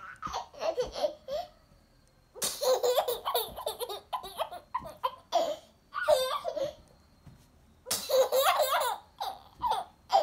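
A small child laughing in about five fits of giggles, with short pauses between.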